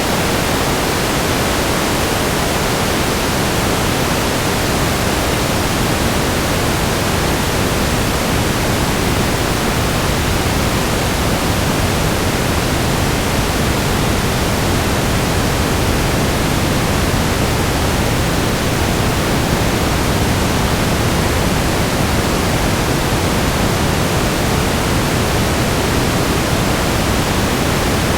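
Steady static noise: an even, unchanging hiss spread across the whole range from deep to high, with no tones or clicks.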